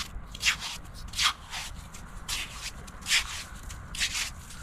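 Repeated short scraping, crunching strokes in wet beach sand, roughly two a second and often in pairs.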